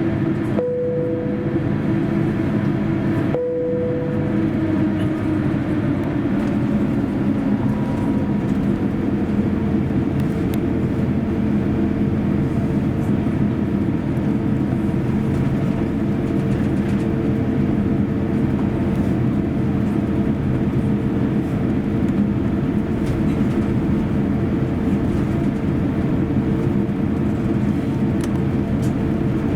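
Airbus A350's Rolls-Royce Trent XWB engines running, heard inside the cabin as a steady rumble with a constant hum, broken by two brief dropouts in the first few seconds.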